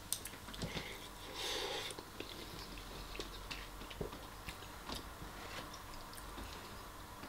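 Close-miked chewing of a mouthful of meatballs and rice, with a few light clicks of a metal fork against the bowl.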